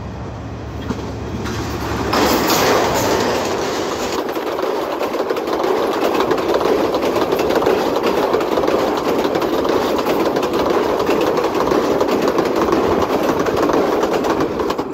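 A passenger train passing close at speed. A low engine hum at first, then about two seconds in the loud rush of the coaches arrives, with a steady rapid clatter of wheels over the rails that fades sharply near the end.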